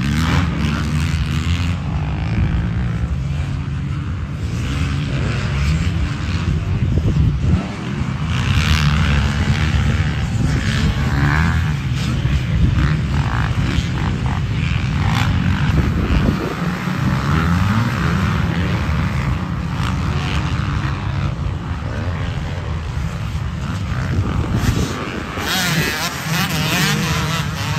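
Several motocross dirt bikes running on the track, their engines revving up and down as they ride past in a continuous drone.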